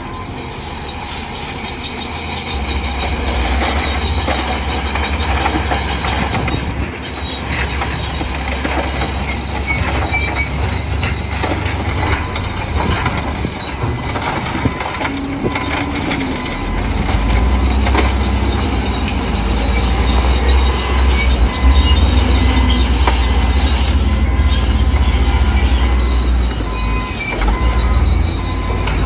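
Heavy earthmoving machinery at work: a diesel engine runs and surges under load, with metallic squealing and clanking throughout. The engine grows louder about halfway through.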